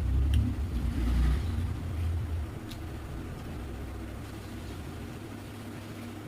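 A low rumble that swells and fades over the first two and a half seconds, leaving a fainter steady hum, with a couple of faint clicks.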